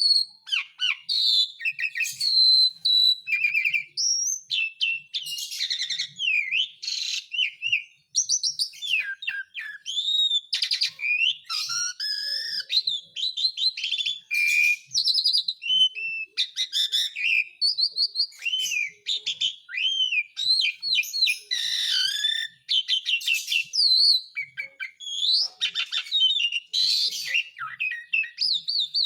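Asian pied starling (jalak suren) singing a continuous, varied song of gliding whistles, short chirps and fast rattling notes, with only brief gaps between phrases.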